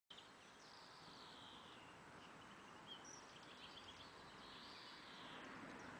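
Faint outdoor ambience: a low steady hiss with birds chirping in the background.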